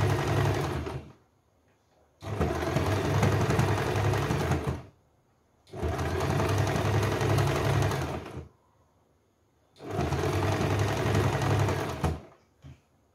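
Electric sewing machine stitching lace trim onto a hem in four runs of two to three seconds each, stopping briefly between them. A small click comes near the end.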